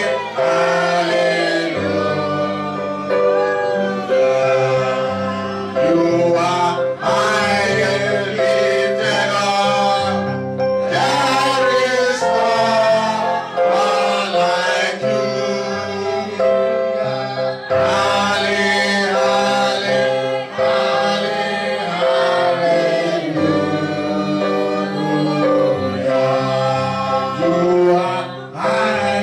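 Live gospel worship song, a man and a woman singing into microphones through the PA over held chords and a stepping bass line.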